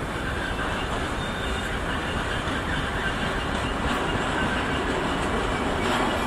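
Locomotive-hauled passenger train rolling past on the station tracks: a steady rumble of wheels on rails, with a faint squeal from the wheels.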